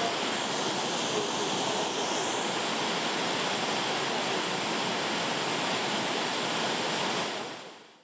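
A tall waterfall, over 30 m high, pouring down a rock face: a steady rush of falling water that fades out near the end.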